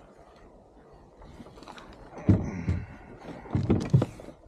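Dull thumps and knocks of fishing gear being handled against a plastic kayak, in two short clusters about two seconds and about four seconds in.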